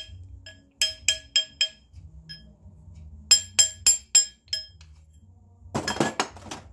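A small hammer tapping a ring on a steel ring mandrel to stretch it up to size: two quick runs of bright, ringing metallic taps, four and then about six. Near the end comes a brief scraping rattle.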